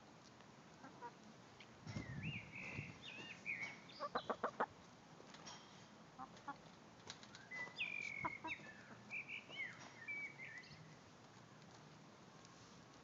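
Hens making high chirping, trilling calls in two spells, and a quick run of about six short sharp sounds just after four seconds in.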